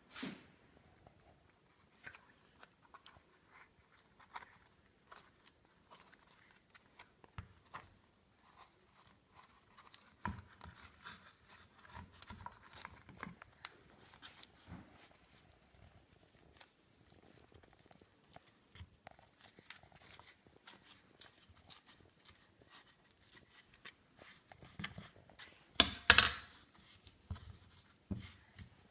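Scattered light clicks, taps and rustles of a white plastic dumpling mold and dough being handled on a wrap-covered wooden board, with one much louder knock or clatter near the end.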